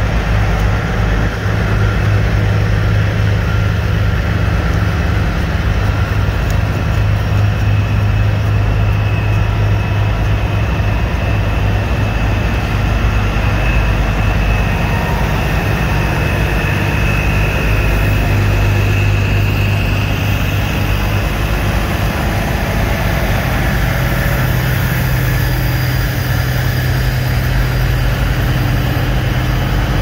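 Heavy vehicle engine idling with a steady low drone that shifts slightly in pitch near the end. A faint high whine rises and fades in the middle.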